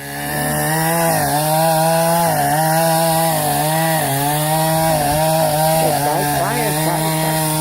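Gas chainsaw revving up in the first second, then running at high speed with its pitch dipping slightly now and then as it cuts into a tree.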